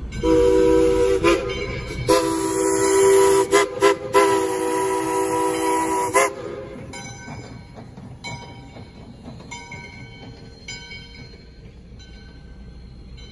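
Chime steam whistle on an American Locomotive Company 2-8-2 steam locomotive, blowing a chord for about six seconds with a few brief breaks, then cutting off. Afterwards a grade-crossing bell dings faintly and evenly over the train's rumble.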